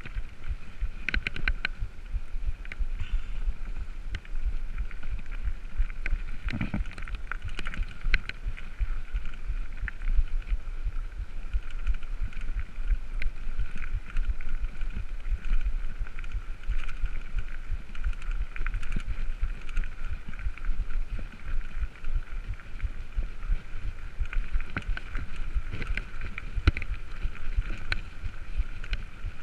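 Mountain bike ridden fast over a gravel track, heard from a camera on the bike or rider: a steady low rumble of wind and tyres on gravel, with frequent short rattles and knocks from the bike over bumps.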